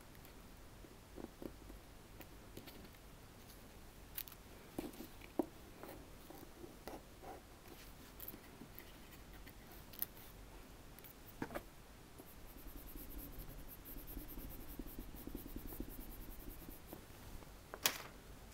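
Craft knife blade cutting and scraping screen tone sheet on drawing paper: faint scattered ticks and scratches, then a longer stretch of steady scratching in the second half, with a sharp click near the end.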